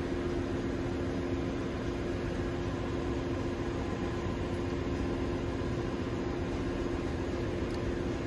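Ship's engine-room machinery running: a steady, even drone with two low hums held under it.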